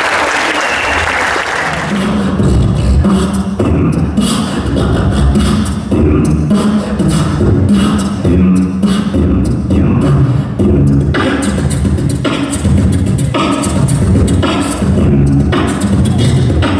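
Applause, then about two seconds in a beatboxer starts a fast, steady rhythm into a handheld microphone, amplified through the hall's PA: deep bass thumps alternating with sharp snare-like hits.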